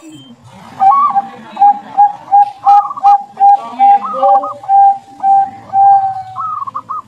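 Zebra dove (perkutut) cooing its song: a quick run of about a dozen short, even low coos, about two and a half a second, with a few higher rising notes among them.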